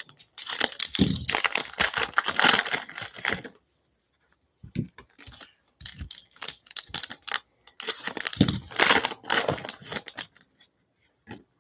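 Foil trading-card pack wrappers from a Panini Contenders mega box being torn open and crinkled by hand, in two long bouts of ripping with scattered crackles between.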